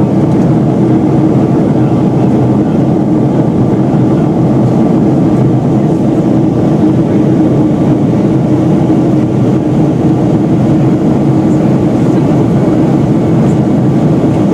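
Steady cabin noise of a Boeing 757-200's twin jet engines and the airflow during the climb after takeoff, heard from a window seat by the wing, with a steady hum under the roar.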